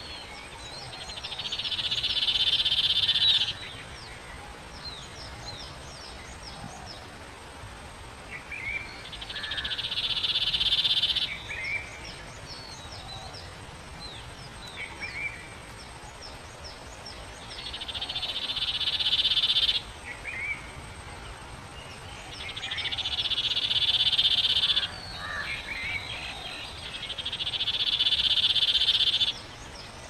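Common iora singing short sweeping chirps and whistled notes. Five times a loud pulsed buzz swells over two to three seconds and cuts off sharply, louder than the bird.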